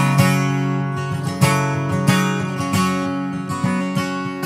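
Acoustic guitar strummed in a steady rhythm between sung lines, its chords ringing on between strokes.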